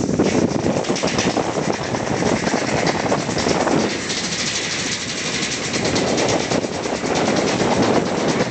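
A person sliding fast down an enclosed tube slide: a loud continuous rushing rumble with a rapid, even rattling clatter.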